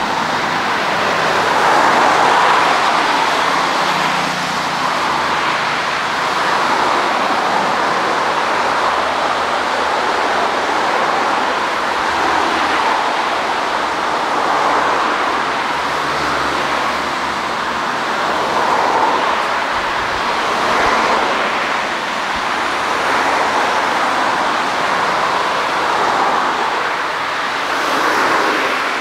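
Jet engines of an Airbus A320-family airliner coming in to land, a steady rushing engine noise that swells and eases slowly.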